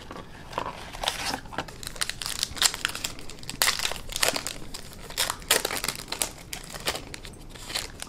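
Foil wrapper of a baseball card pack crinkling and tearing as it is opened, in irregular crackles.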